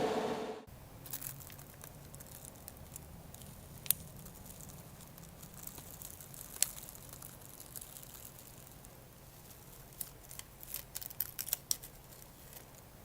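A spray hiss that cuts off suddenly about half a second in, then faint small handling sounds: scattered light clicks and rustles, with a quick flurry of them near the end.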